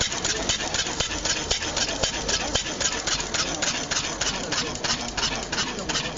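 Benz Patent-Motorwagen's single-cylinder four-stroke engine idling, a steady, even beat of about five a second.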